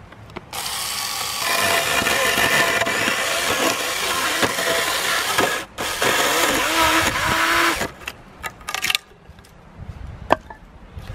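Small cordless chainsaw cutting through a birch log, its motor whining under load for about seven seconds with one brief break partway. After it stops come a few light knocks and one sharper knock as the cut-off piece falls away.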